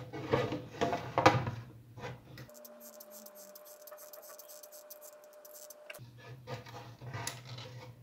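Hands handling plastic parts: a plastic power-supply case and a USB hub rubbing, scraping and knocking together, with two sharper knocks in the first second and a half. In the middle there is a quieter stretch with only a faint steady hum and light ticks.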